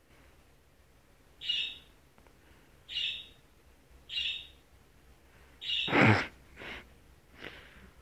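Sulphur-crested cockatoo giving a string of short calls, spaced a second or so apart. The loudest and fullest call comes about six seconds in.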